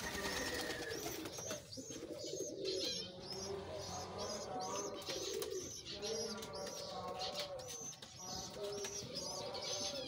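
Fantail pigeons cooing over and over in low, rolling calls, with many short, high chirps of small birds mixed in.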